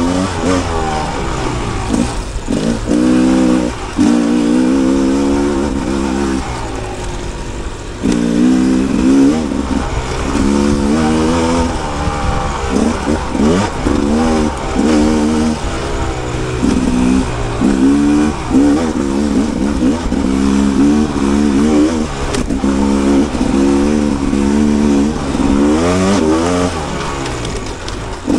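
Rieju MR 300 Pro's 300 cc two-stroke single-cylinder engine revving up and down over and over as the dirt bike is ridden, the throttle opening and closing every second or two.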